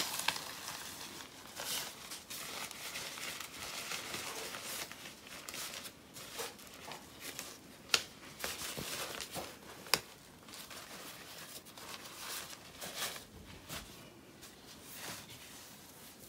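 A green slippery-fabric Magnide Easy-Slide sock aid rustling and crinkling as it is handled and drawn out of a compression stocking, with fabric rubbing on the stocking. Two sharp clicks about two seconds apart come around the middle.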